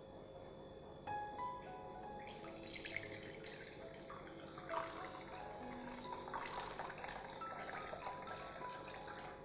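Water running from a tap and splashing in a sink, starting about two seconds in, over soft background music with plucked or mallet-like notes.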